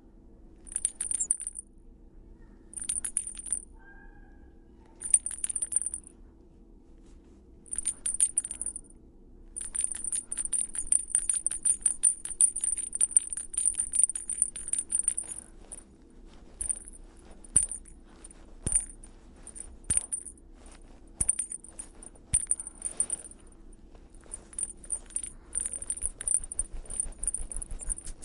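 A small toy bell being shaken, jingling high and bright. It comes first in four short shakes about two seconds apart, then in a continuous run of about six seconds, then in scattered short jingles and single clinks.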